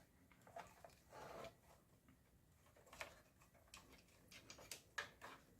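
Near silence with a few faint, scattered clicks and light taps from hands handling desktop computer parts, more of them in the last couple of seconds.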